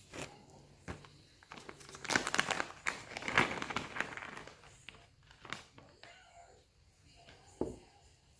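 Plastic crinkling and rustling, with scattered sharp clicks of small parts being handled. It is loudest from about two to four and a half seconds in.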